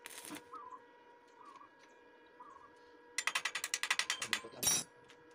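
Electric arc welder tacking a steel motorcycle frame: a brief crackle of the arc at the start, then about a second of rapid crackling clicks a little past halfway, and one more short burst near the end.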